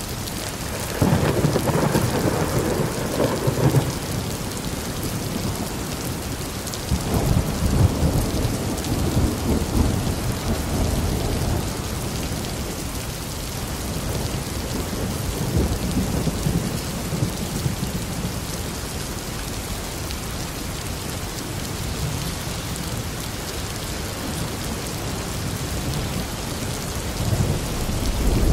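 Steady heavy rain with rolling thunder: a sudden rumble about a second in that lasts a few seconds, a longer rumble from about seven seconds in, a fainter one midway, and another building near the end.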